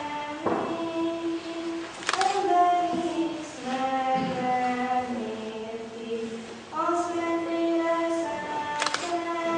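Choir of girls and women singing a slow melody in long held notes.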